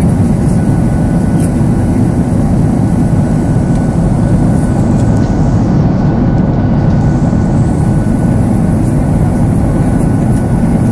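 Steady, loud cabin noise of a Boeing 737-800 in flight, heard from a window seat: the drone of its CFM56-7B turbofan engines and rushing air, with a faint steady whine above it.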